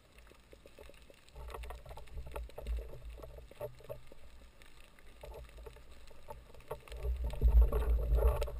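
Underwater sound through a GoPro Hero2's waterproof housing: muffled water movement around the camera with a low rumble and scattered crackles, growing much louder about seven seconds in.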